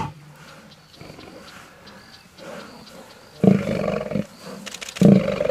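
Male lions snarling: two short, loud snarls about three and a half and five seconds in.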